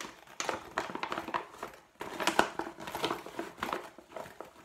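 Plastic mesh zipper file bag crinkling and rustling as it is handled and pressed into shape by hand, in short irregular crackles.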